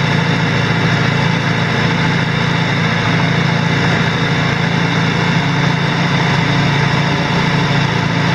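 An engine running steadily, an even, unchanging hum with a strong low band.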